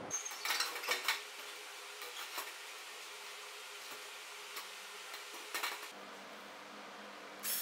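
Workshop handling sounds: scattered light clinks and knocks of wood and tools being set down and moved on a metal-topped saw table, over a faint steady hiss. A louder high-pitched noise starts right at the end.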